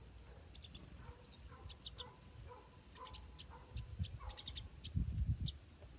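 Small birds chirping at a feeder: scattered short, high chirps, with a few lower calls in the first half. Low rumbling thuds build up over the last two seconds.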